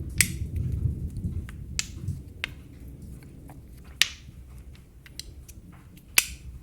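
Magnetic begleri beads clicking together as they are handled, a handful of sharp, irregular clicks with fainter ticks between. A low rumble of thunder sits under the first two seconds.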